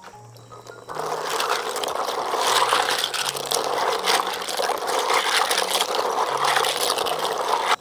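Hill snails being scrubbed and stirred by hand in a basin of water: a busy clatter of shells rubbing and knocking together with sloshing water, starting about a second in.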